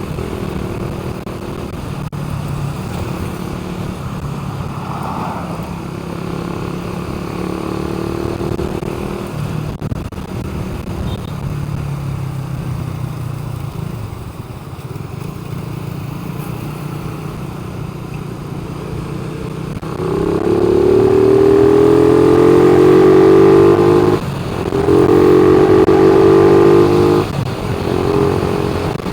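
A motor vehicle engine running steadily, then, about two-thirds of the way in, much louder with its pitch climbing as it accelerates. It drops off twice briefly, like gear changes.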